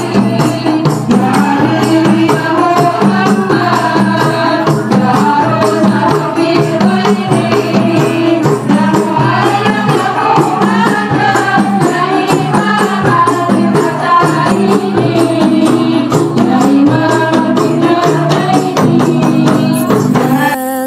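A group of voices singing an Islamic devotional song together, accompanied by rebana frame drums played in quick, steady strokes.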